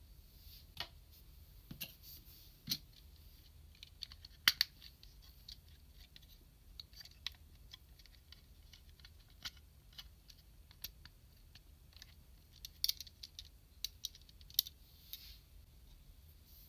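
Small hard-plastic clicks and taps at irregular intervals as the snap-together pieces of an SMP GaoKing figure are handled and their joints moved, with the sharpest clicks about four and a half seconds in and a busy cluster near the end.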